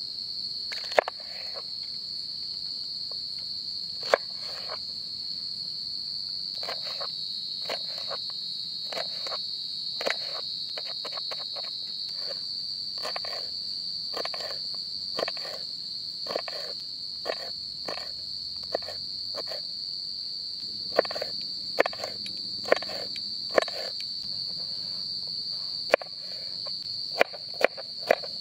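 Crickets chirring steadily in one continuous high note, with sharp knocks every second or so that come more often near the end.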